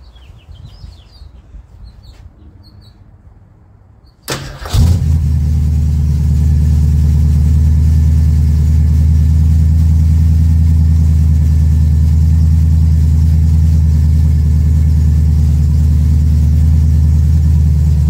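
Carbureted V8 engine cranks briefly and catches about four seconds in, then idles steadily.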